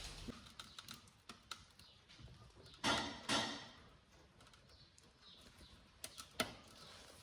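Scattered light clicks and knocks of a rubber air spring being handled and worked up into its seat under a car, with two short scraping sounds about three seconds in.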